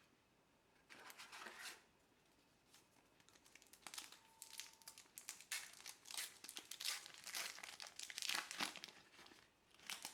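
Trading-card pack wrappers crinkling and tearing as packs are opened by hand, in irregular bursts: a short run about a second in, then almost continuous from about four seconds on.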